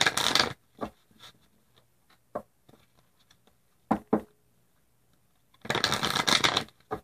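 A deck of tarot cards being shuffled by hand: two fluttering bursts of about a second each, one at the start and one about six seconds in, with a few sharp clicks of the cards between.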